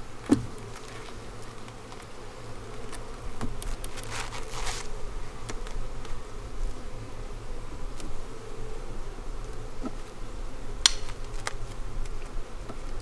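Honeybees buzzing steadily around an opened hive, with a sharp knock just after the start, a rasping scrape around four to five seconds in, and a click near the end.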